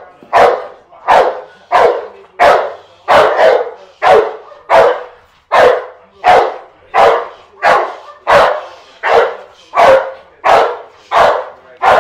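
Dog barking at a decoy in protection training: loud, evenly spaced barks, about three every two seconds, that keep up without a break.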